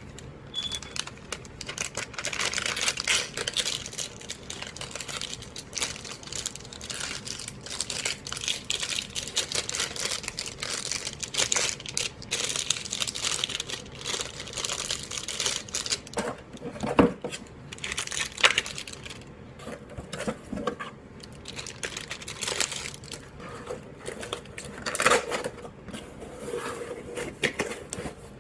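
Plastic and paper packaging crinkling and rustling as it is handled and torn open, with scattered small clicks and a few louder knocks.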